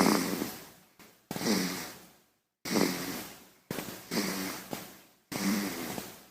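A baby snoring: about five rattling snore breaths, roughly one every second and a bit, each starting loud and fading away.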